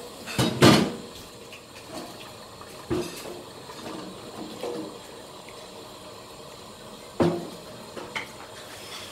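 Chopsticks knocking and scraping against a ceramic rice bowl: a few short separate knocks, the loudest about a second in and another clear one near the end.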